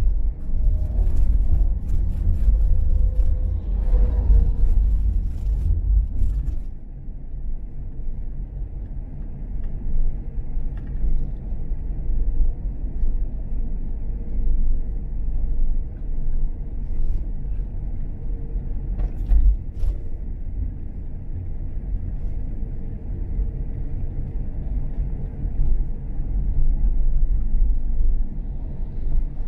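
Car driving, a steady low rumble of engine and road noise, louder for the first six seconds or so and then settling a little quieter.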